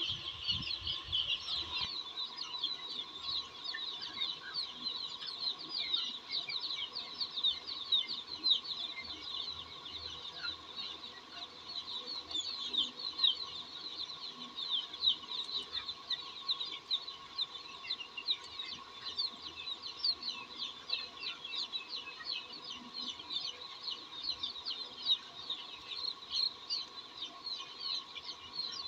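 A large flock of young chicks peeping: a dense, continuous chorus of short high cheeps, with a faint steady tone underneath.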